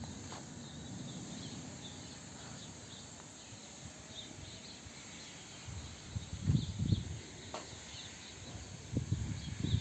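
Outdoor background with faint insect chirping, and a couple of low thumps and rumbles about six and a half and nine seconds in.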